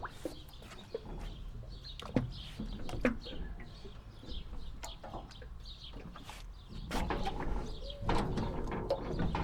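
Wooden jetty creaking and squeaking as it shifts on the water, with a couple of sharp knocks about two and three seconds in and a denser run of squeaks near the end, over the steady low gurgle of flowing river water.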